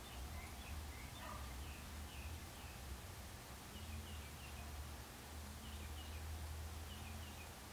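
Quiet room tone: a low steady hum, with faint short high chirps scattered through it.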